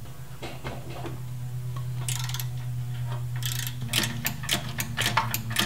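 Socket ratchet clicking in short, quick runs as manifold bolts are worked loose, with single clicks and knocks between. A steady low hum runs underneath.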